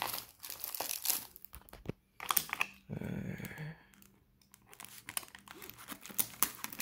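Clear plastic shrink-wrap on a speed-controller box crinkling as a hand handles it and picks at it to open it, in short irregular crackles with a denser stretch in the middle.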